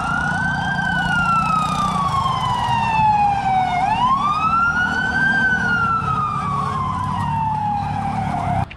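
Ambulance siren wailing over a low road rumble, in two slow cycles: each a quick rise in pitch, then a long fall. It cuts off suddenly just before the end.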